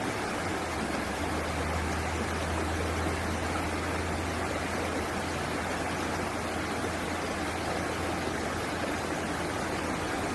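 Flowing water rushing steadily, like a stream or small waterfall, with a steady low hum underneath.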